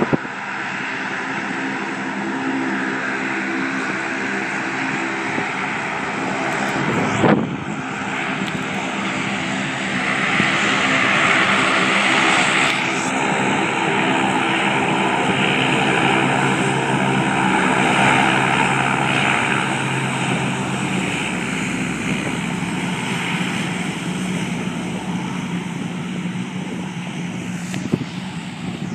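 Lockheed C-130 Hercules four-engine turboprop taxiing, a steady propeller and turbine drone with several held tones. A brief loud thump about seven seconds in.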